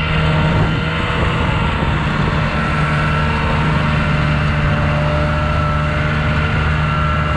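Snowmobile engine running at a steady speed while towing a loaded gear sled across snow, its even hum mixed with the rushing noise of the track and snow.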